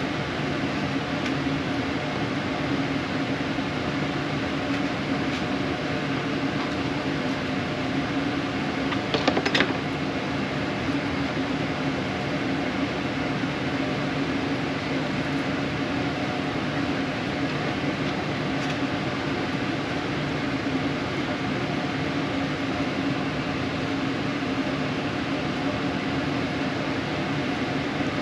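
Steady hum of a running fan with a constant low drone. There is a brief clatter about nine seconds in.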